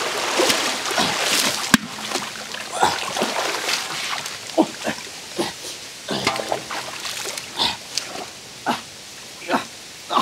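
Muddy river water splashing as a large metal basin is swept through it, with one sharp knock a little under two seconds in. After that, a scattered series of short vocal sounds.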